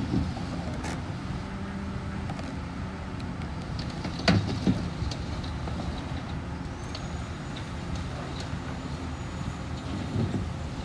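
Excavator's diesel engine running steadily while it moves a sand-pumping barge over dry ground, with two sharp knocks a fraction of a second apart about four seconds in.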